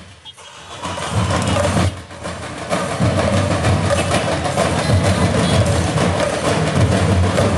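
Drums beating rapidly and continuously, dipping at the very start and building back within about a second.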